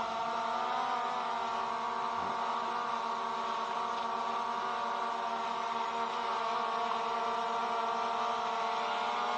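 DJI Mavic Air 2 quadcopter hovering close by, its four propellers giving a steady buzzing whine of several tones that waver slightly in pitch near the start as it holds position.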